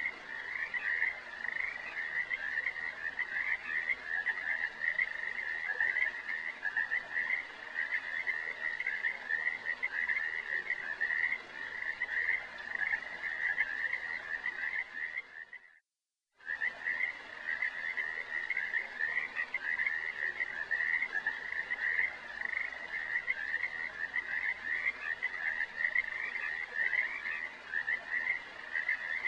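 A dense, unbroken chorus of rapid, high-pitched trilling calls. A little past halfway it fades out into a moment of silence, then cuts straight back in.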